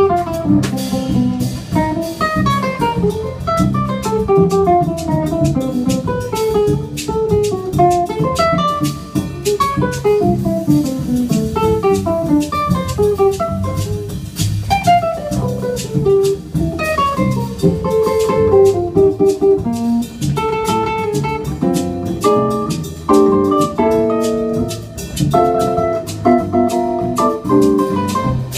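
Instrumental trio of cello, nylon-string classical guitar and drum kit playing a choro live. Quick runs of notes fall in pitch again and again, giving way about two-thirds of the way through to repeated short chords, over a steady drum kit groove.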